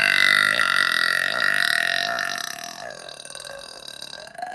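One long, loud, pitched burp brought up by chugging Sprite, the carbonation coming back up. It is strongest at first, fades over about three seconds, and swells weakly again near the end.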